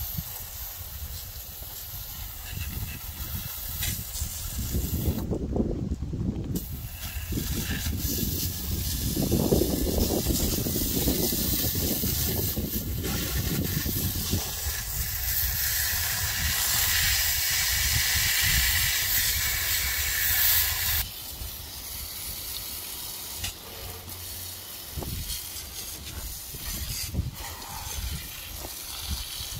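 Water hissing from a garden-hose spray nozzle as it jets onto the Farmall Cub tractor's steel cultivator shank, wheel and the dirt beneath, rinsing off fertilizer. The spray pauses briefly about five seconds in, runs loudest in the middle, and drops off suddenly about twenty-one seconds in.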